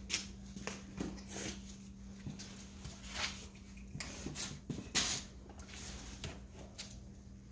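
Homemade spin-art machine's electric motor humming steadily, with scattered short hissy bursts of handling noise from footsteps and a squeeze bottle of acrylic paint; the loudest burst comes about five seconds in.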